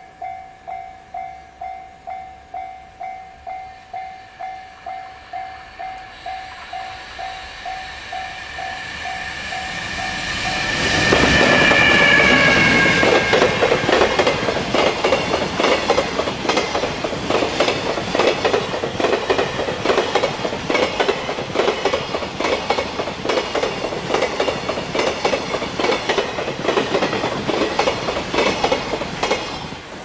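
Japanese level-crossing warning bell ringing in a rapid, even beat as a container freight train approaches. Then comes the loud rush of the passing train, with a brief falling tone as the locomotive goes by, followed by a long run of rapid clickety-clack from the wagon wheels over the rail joints. The train noise ends abruptly near the end, leaving the bell ringing again.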